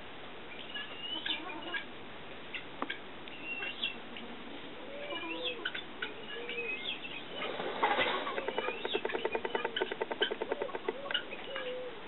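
Male turkey in courtship display rustling its spread feathers: a fast, even rattling run of about three seconds past the middle, among short soft calls and chirps.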